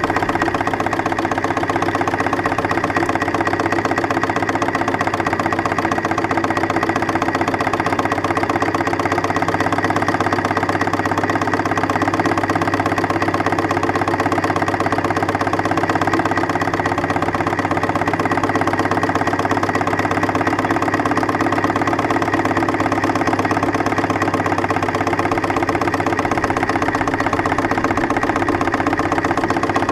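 A 3-inch scale Case steam traction engine runs at a steady pace while being driven, making a continuous, fast, even mechanical beat from its engine and gearing.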